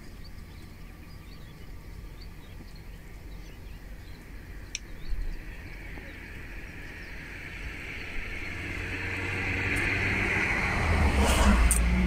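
A vehicle passing close by: its engine and tyre noise swell over about five seconds, loudest just before the end, then fall away quickly, over a steady low engine hum.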